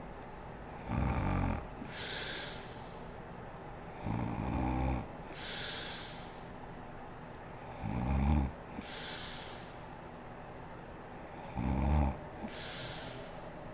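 A sleeping woman snoring: four loud, low, rattling snores about every three and a half to four seconds, each followed by a softer breathy hiss.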